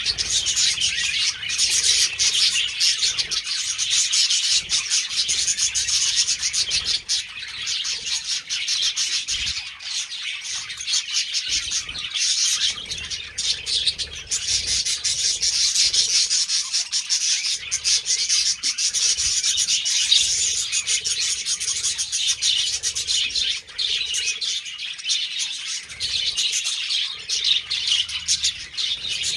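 Budgerigars chattering and warbling without a break, a dense stream of rapid high chirps and clicks.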